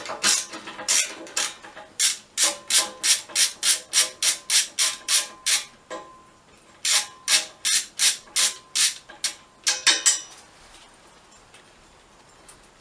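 Ratchet wrench clicking in quick even runs, about four clicks a second, as it backs off a motorbike's exhaust mounting bolt. Two runs with a short pause between, stopping about ten seconds in.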